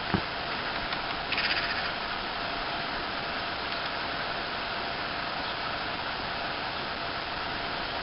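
A woodpecker knocking on a wooden utility pole: one short burst of rapid taps about a second and a half in, over a steady background hiss.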